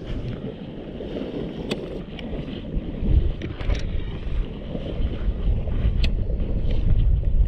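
Wind rumbling on an action camera's microphone over fast-flowing shallow seawater, growing louder about three seconds in, with a few brief sharp clicks.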